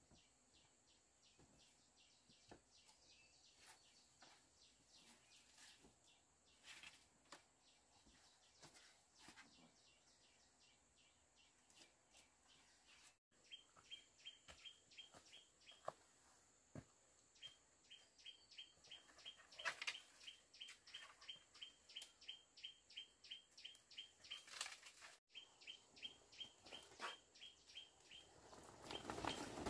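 Faint outdoor ambience: rapid, evenly spaced high chirps, about four or five a second, from a small animal, over a steady high-pitched whine.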